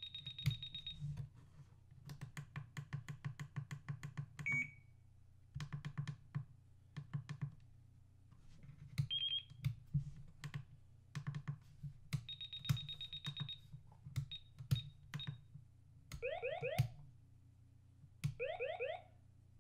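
A FrSky Taranis X9D Plus radio transmitter's speaker plays one built-in sound effect after another as its buttons are clicked through the list: short high beeps, a chirp and rapid rattling ticks, with repeated key clicks between them. Near the end come two short siren calls, each a pair of quick rising sweeps.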